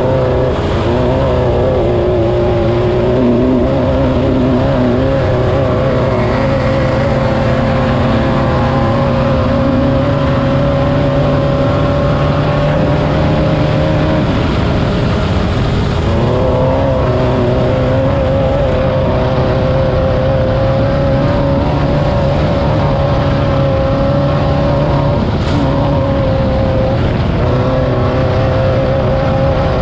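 VW-powered Class 9 off-road race car's air-cooled engine running hard, with a dense rattle and road noise over it. The engine note dips briefly about halfway through and again near the end, then picks back up.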